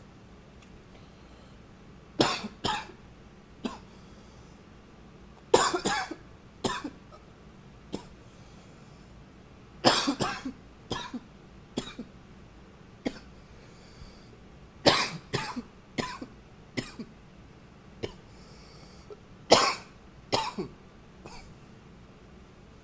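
A man coughing repeatedly, in short fits of two to four coughs every few seconds, with single lighter coughs in between.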